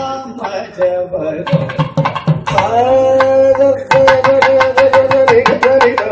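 Carnatic vocal music in raga Hindolam with dense mridangam strokes. About two and a half seconds in, a singer glides up into one long held note that wavers slightly, over quickening drumming.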